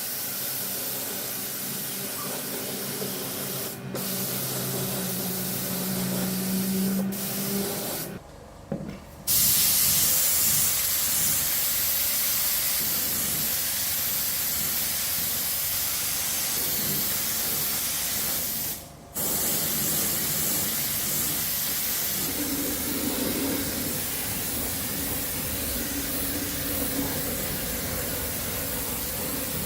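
Steady hissing spray that stops briefly about eight seconds in and again about nineteen seconds in.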